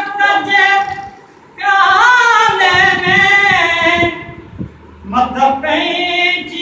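A man singing unaccompanied in long held notes with a wavering pitch, pausing briefly about a second in and again a little past the middle.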